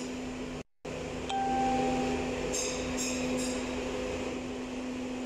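Steady machine hum with one clear overtone, cut off by a short dropout just under a second in. About a second later a brief high tone sounds for about a second, and a few short high rasps come near the middle.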